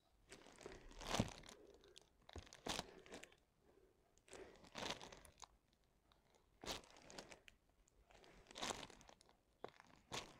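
Faint crinkling and rustling of the clear plastic cover film on a diamond painting canvas, in short bursts every second or two, as the film is handled while drills are pressed on with a drill pen.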